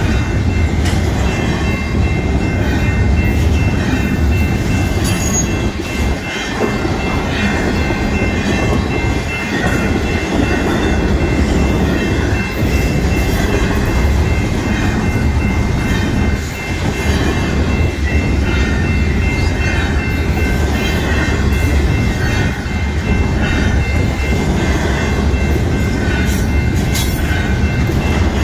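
Double-stack intermodal freight train's container well cars rolling past at close range: a steady, loud rumble of steel wheels on rail with clatter over the joints, plus a faint steady high whine over it.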